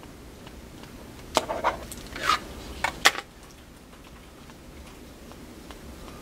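Plastic clipboards being handled on a counter: a handful of short clacks and knocks between about one and a half and three seconds in.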